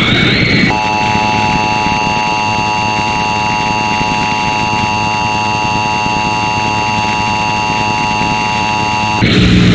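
Emergency Alert System two-tone attention signal heard through heavy static and distortion: a harsh, steady buzzing tone over hiss. A short burst of noise opens it, and near the end it breaks into noise.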